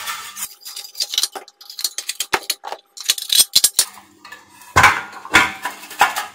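Metal and ceramic clinks and knocks from a round electric hot-plate heater being handled and turned over on a workbench. A quick run of light taps fills the first few seconds, and three louder knocks come near the end.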